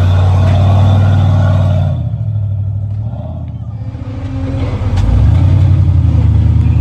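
Off-road vehicle's engine running steadily, easing off about two seconds in and picking back up about five seconds in.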